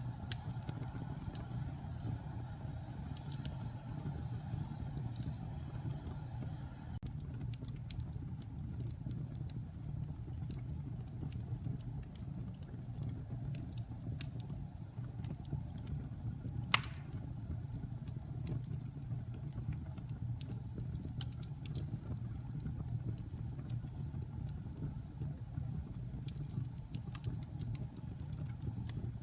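Wood fire burning in a fireplace: a steady low rumble of flames with scattered small crackles, and one sharp loud pop about two-thirds of the way through.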